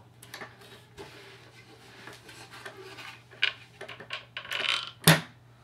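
Sargent 1430 door closer being worked by hand: the arm rubs and scrapes with light clicks, then a sharp knock about five seconds in.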